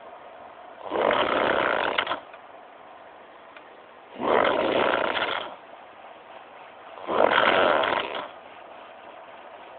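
A sleeping person snoring: three snores about three seconds apart, each a little over a second long.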